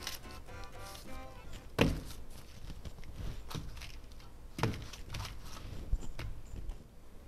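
Kitchen work sounds: a few sharp knocks and thuds, the loudest about two seconds in, with background music.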